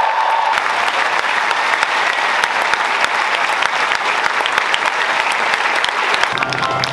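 Large audience applauding steadily, with a voice cheering at the start; music comes in near the end.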